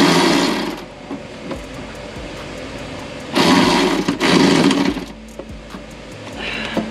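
Cordless electric ratchet running in three short bursts, one at the start and two back to back about three and a half seconds in, driving the air compressor's mounting bolts tight.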